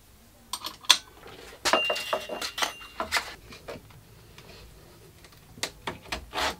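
Metal clicks, knocks and rattles from handling a belt grinder while its sanding belt is fitted and the spring-loaded tensioner arm is pulled to set the belt tension. The sharp knocks come in groups in the first three seconds and again near the end, with a brief ring of metal about two seconds in.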